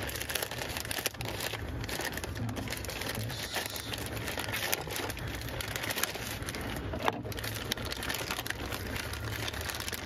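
Plastic poly mailer crinkling and rustling as it is slit with a folding knife and pulled open by hand, with scattered small crackles and a sharper snap about seven seconds in.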